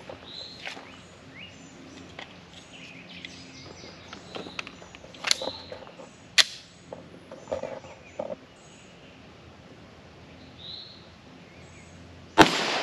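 A 9mm pistol being reloaded, with a few sharp clicks as it is handled, while birds chirp. It then fires a single loud shot near the end.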